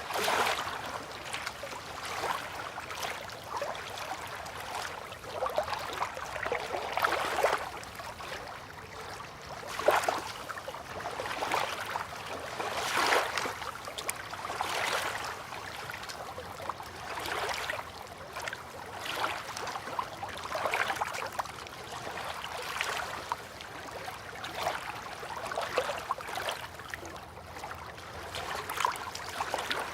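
River water lapping gently at a bank and moored boats, small waves sloshing in irregular soft surges every second or two.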